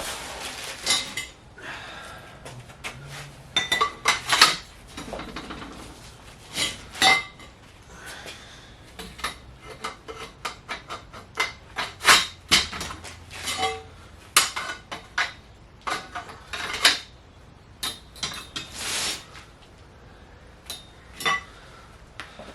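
Steel rail sections of a chain-drive garage door opener track being handled and laid out, clanking and clinking against each other and the floor in irregular knocks, with handling rustle between.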